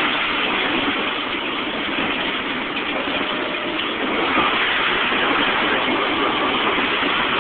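Freight train of tank cars rolling past: a steady noise of steel wheels running on the rails.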